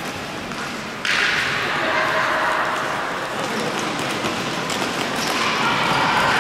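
Hockey game in progress: sticks and ball knocking during play over a steady din of players' and spectators' voices. The noise steps up suddenly about a second in and stays louder.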